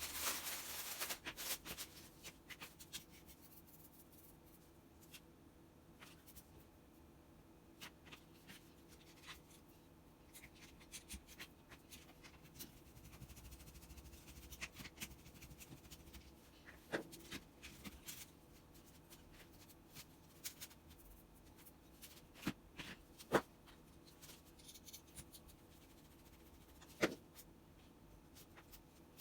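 Scattered light clicks and taps of small parts and tools being handled, with a few sharper clicks in the second half, over a faint steady hum.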